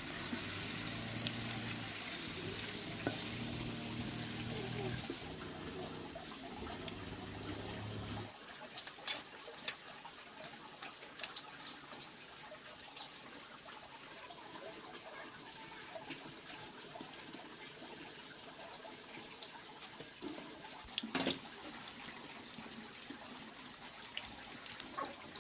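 Batter cakes sizzling in hot oil in a wok, with a low steady hum underneath. The hum stops suddenly about eight seconds in and the sizzle drops away, leaving a faint hiss with scattered clicks.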